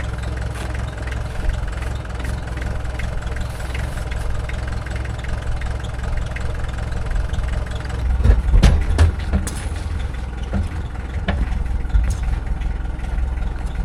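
Engine idling steadily, with a few sharp metal clunks, a cluster about eight to nine seconds in and one more a couple of seconds later.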